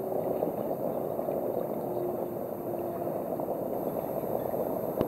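Water steadily splashing and gurgling against a boat's hull, with a faint hum that fades out about three seconds in. A sharp click comes near the end.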